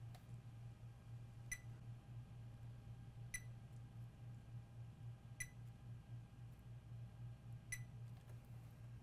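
Digital multimeter in diode mode giving four short, faint beeps about two seconds apart as its probes touch capacitors on the circuit board, over a steady low hum.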